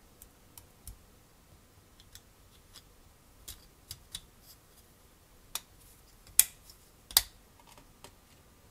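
Small parts of a scale-model car being handled and worked: scattered light clicks and taps, with two sharper clicks about six and seven seconds in.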